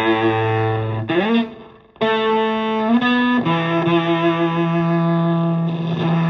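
Stratocaster in Drop C tuning through a germanium Fuzzrite fuzz pedal (AC128 and OC75 transistors) into an Ampeg VT22 amp and 4x12 cabinet, playing sustained fuzz-distorted notes. About a second in, one note slides up in pitch and then fades away. New notes start at about two seconds, and a lower note from about three and a half seconds rings on with a slight wavering pulse.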